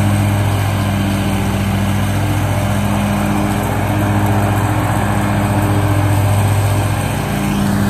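Gravely zero-turn riding mower's engine running steadily under load as its deck cuts tall grass, a loud even hum.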